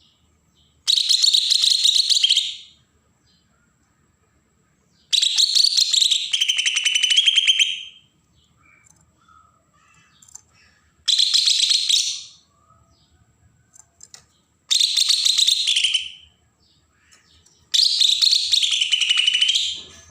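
Green leafbird (cucak ijo) giving its harsh, rasping 'besetan' call: five buzzy bursts of about one and a half to three seconds each, some falling in pitch at the end, with short pauses between them.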